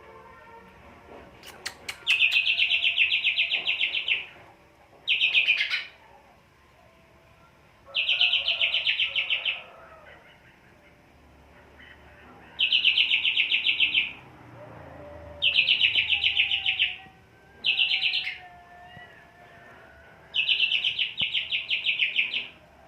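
A cucak hijau (green leafbird) singing in repeated phrases of fast, high trilling notes, seven phrases of about one to two seconds each with short pauses between them. It is singing freely, which the keeper puts down to high breeding drive.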